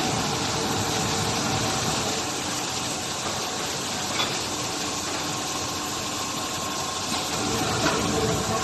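Automatic PE shrink-film fabric-roll packing machine running: a steady mechanical hum with a hiss over it, and a brief click about four seconds in and another near the end.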